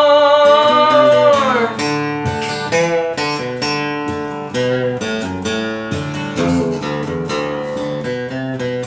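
Closing of a country song: the singer's held last note on "heart" bends down and ends a little under two seconds in. A solo acoustic guitar then plays a picked closing run of single notes.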